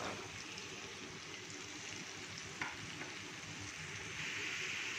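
Chopped raw papaya frying in hot oil in a nonstick karahi: a steady sizzle, with one short knock about two and a half seconds in. The sizzle grows louder over the last second.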